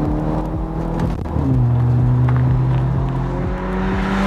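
Stage 2 Skoda Octavia VRS 230's turbocharged 2.0-litre four-cylinder pulling hard at full throttle through its Magnaflow downpipe exhaust, the revs climbing. A quick DSG upshift about a second in drops the pitch, and the revs then climb again.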